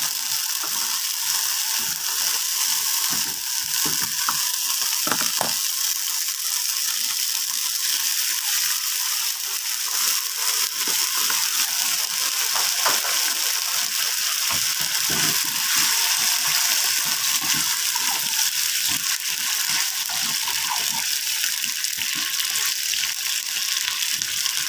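Egg and onions sizzling in hot oil in a wok over a gas flame: a steady hiss with scattered crackles and pops, and now and then the scrape of a spatula in the pan.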